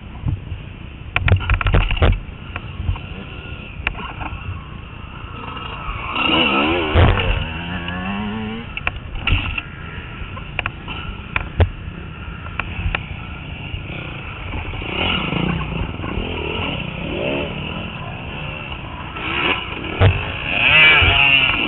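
Honda CRF250X single-cylinder four-stroke dirt bike engine being ridden, its revs rising and falling repeatedly as the throttle is worked over rough dirt. A cluster of sharp knocks comes about a second in, with single knocks later as the bike hits bumps.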